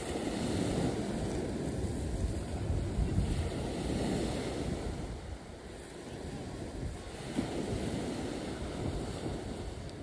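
Wind buffeting the microphone: a noisy low rumble that swells and eases.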